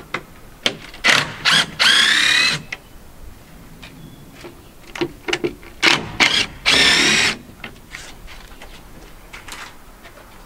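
Cordless drill/driver working screws in a plywood board. It gives a few short trigger blips, then two whirring runs of about a second each, a few seconds apart.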